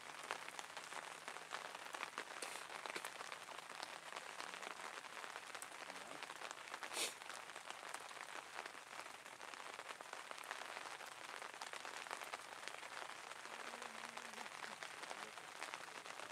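Faint, steady rain pattering, with one short louder tap about seven seconds in.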